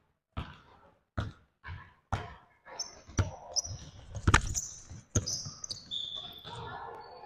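Basketball being dribbled on a hardwood gym floor: a string of sharp bounces at irregular half-second gaps, the loudest just past four seconds in. Short high-pitched sneaker squeaks on the court run through the second half.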